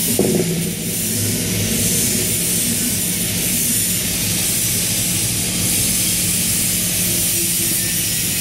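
Steady loud rushing noise of a shop exhaust fan with a low hum underneath, and a brief clatter just after the start.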